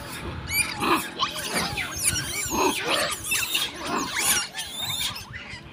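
Young long-tailed macaques screaming: a run of high-pitched squealing calls that bend up and down in pitch, several overlapping.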